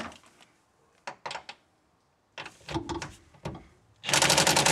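Cordless impact wrench hammering on a nut to loosen it: a few short blips early, then a loud, fast rattling run starting about four seconds in.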